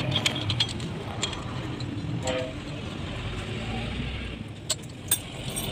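A vehicle engine running with a steady low rumble, a short horn-like toot about two seconds in, and a few sharp metallic clicks and taps.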